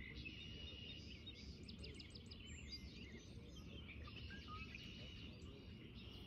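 Many small birds chirping and calling, with a quick run of short high notes about two seconds in, over a steady low rumble.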